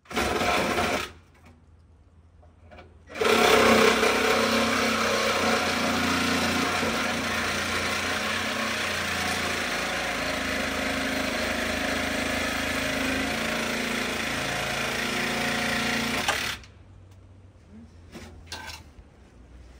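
A power tool runs in a short burst of about a second, then starts again and runs steadily for about thirteen seconds before cutting off suddenly.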